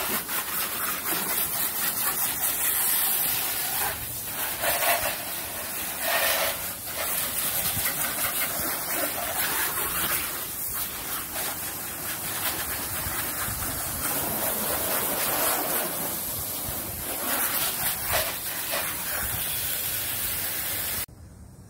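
Water jet from a hose spray nozzle hitting a car's bodywork and the concrete beneath it: a steady hiss that swells and changes in tone as the jet is swept across the surfaces, cutting off abruptly near the end.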